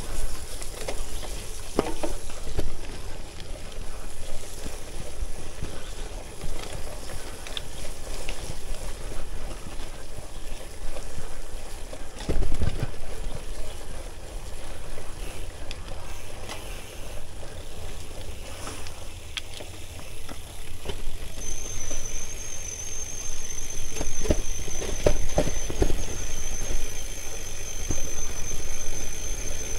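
Gravel bike tyres rolling over a dirt and gravel trail, with wind buffeting the handlebar camera's microphone and the bike knocking and rattling over bumps, one hard knock about twelve seconds in and a quick run of knocks near the end. A thin steady high whine joins for the last several seconds.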